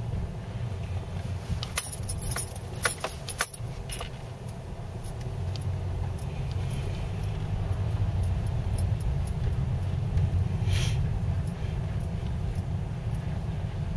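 Car cabin rumble while driving slowly over packed snow, ice ruts and slush. About two seconds in comes a short run of sharp clicks and jingling rattles, with scattered ticks afterwards and a brief hiss near the end.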